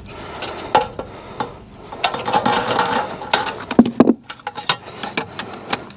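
Hand tin snips cutting through metal drip edge: a series of sharp clicks and crunching snips, densest in the middle, followed by knocks and taps as the cut metal edge is handled.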